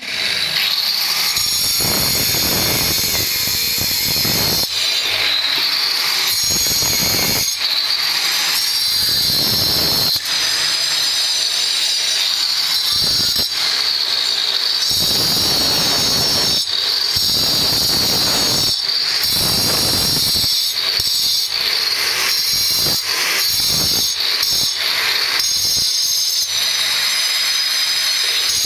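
Handheld electric marble cutter with a diamond blade cutting and shaping marble: a steady high-pitched whine that swells again and again as the stone is pressed into the blade.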